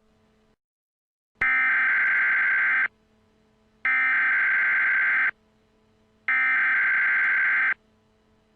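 Three Emergency Alert System SAME header data bursts: harsh, buzzy electronic screeches, each about a second and a half long with about a second of quiet between them. They are the digital code that opens a new alert, just before the two-tone attention signal.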